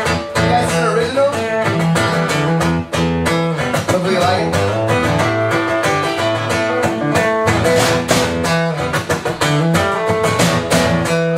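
Live blues band playing an instrumental intro: strummed guitar over a steady bass line, with a regular rhythm.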